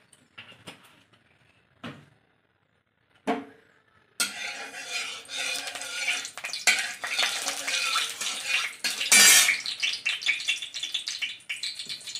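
A few light metal clinks, then about four seconds in mustard oil in an iron wok starts sizzling suddenly and keeps spitting, while a metal spatula scrapes and stirs against the pan.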